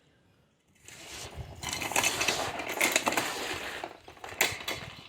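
Metallic clinking and rattling: a dense clatter of many small clicks lasting about three seconds, then a couple of separate clicks near the end.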